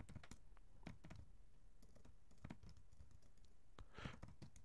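Faint computer keyboard typing: scattered, irregular key clicks, with a short, slightly louder noise about four seconds in.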